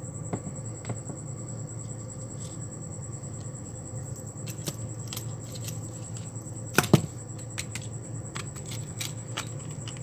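Small clicks and clinks of hard plastic topwater lures and their metal treble hooks and split rings being handled on a wooden table, with a louder double knock about seven seconds in, over a steady low hum.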